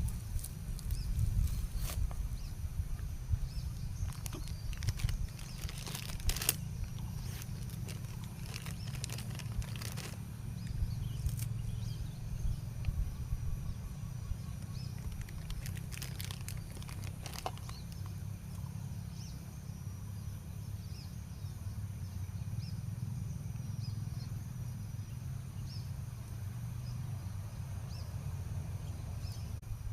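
Outdoor ambience: a steady low rumble with scattered crackles and rustling clicks, most frequent in the first half.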